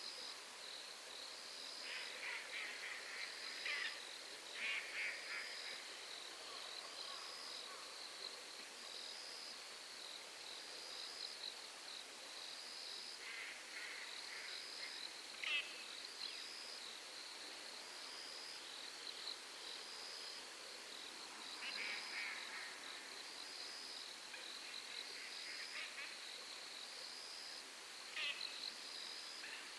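Night insects chirping in an even, high-pitched pulse a little under once a second, broken four times by bursts of rapid, chattering animal calls a few seconds long.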